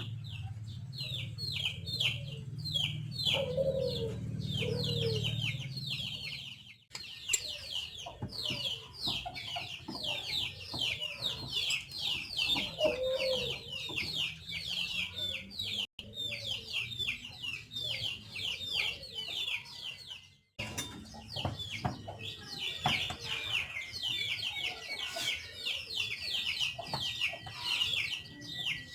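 Poultry calling: a constant stream of rapid, high, falling peeps with a few lower clucks mixed in. A low hum sits under the first few seconds, and the sound drops out briefly three times.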